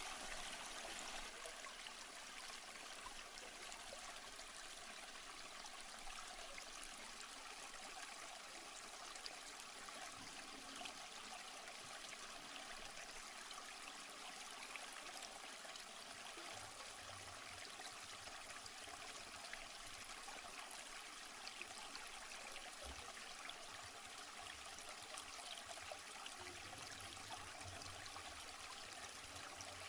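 Waterfall: a steady, faint rush of falling water, an even hiss with no break.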